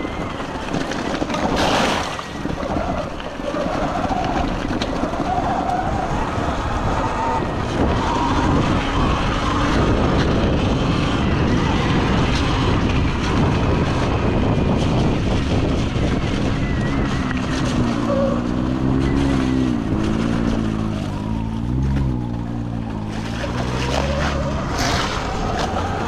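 Sur Ron electric dirt bike being ridden over a dirt and gravel track: steady wind rush on the microphone and tyre noise, with a faint motor whine rising and falling with the throttle. About three-quarters of the way through, a lower wavering hum joins in for a few seconds.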